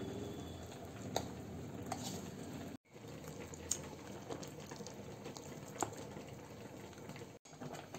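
Metal spoon stirring thick, wet flour-and-rice-flour batter in a ceramic bowl: a steady squelching with a few sharp clicks of the spoon against the bowl. The sound breaks off for an instant twice.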